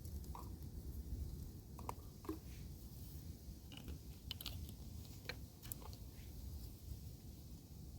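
Wind rumbling steadily on the microphone, with scattered faint clicks and crackles over the first six seconds or so.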